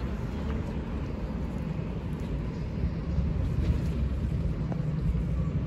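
City street ambience: a steady low rumble of traffic, with a few faint clicks over it.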